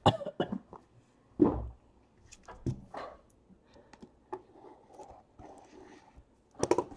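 A cardboard trading-card box being picked up and handled on a table: a thump about one and a half seconds in, then scattered light knocks and clicks.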